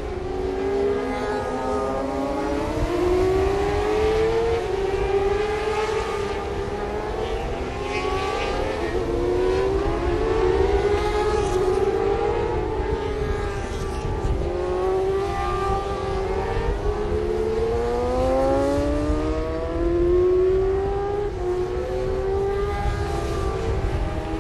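Several 600cc supersport racing motorcycles running on track at once, their engines overlapping and repeatedly rising and falling in pitch as they accelerate and change gear.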